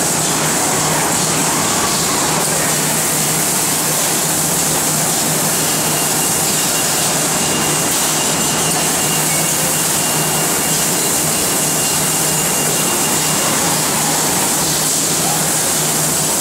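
Steady industrial machine noise from a laser-cutting and robotic sorting cell: a constant loud hiss over a low hum, with a faint high whistle that comes and goes.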